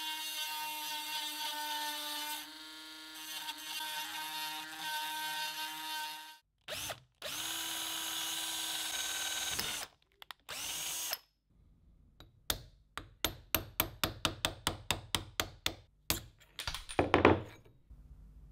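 A small electric power tool motor whines steadily for about six seconds, its pitch shifting a little under load, then runs again for about three seconds and gives a short burst. A quick series of sharp taps or clicks follows, several a second, ending with a louder knock near the end.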